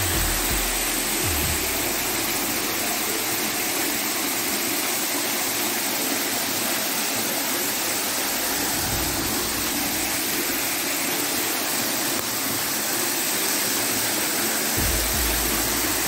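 Waterfall pouring onto a rocky pool: a steady, even rush of falling water, with a few low rumbles now and then.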